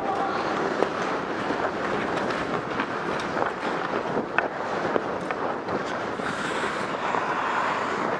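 Ice hockey skate blades gliding and scraping on rink ice as a steady rushing noise, with a few sharp clicks.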